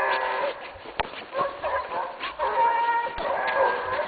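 Hunting hounds baying, giving tongue in repeated drawn-out calls as they work a hare's scent trail. A single sharp click comes about a second in.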